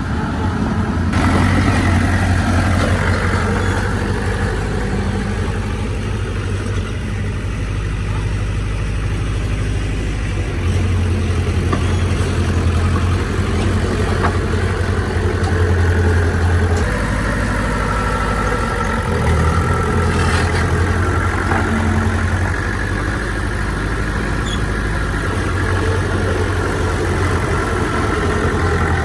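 Heavy diesel engine of an earthmoving machine running continuously, its low note shifting up and down several times as the load and throttle change.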